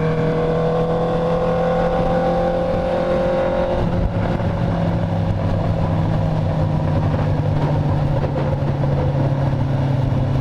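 Honda CB650F's inline-four engine through a full stainless-steel Atalla exhaust, running under load with its pitch slowly rising. About four seconds in the pitch drops a little, and it then runs on steadily.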